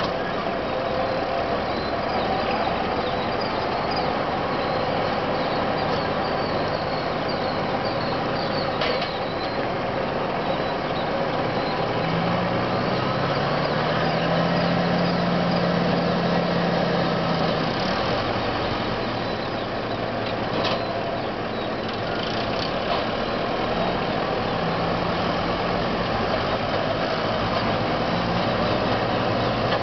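McCormick 140 tractor running under load, driving a New Holland 790 pull-type forage harvester chopping windrowed barley: a steady mechanical drone of engine and harvester. The engine note shifts higher for a few seconds about halfway through.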